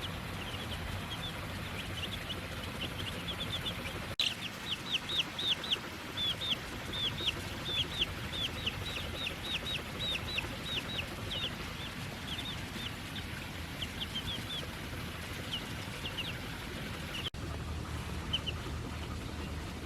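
Baby chicks peeping: a quick run of short, high peeps, busiest and loudest from about four seconds in until about twelve, then thinning out, over a steady background hiss.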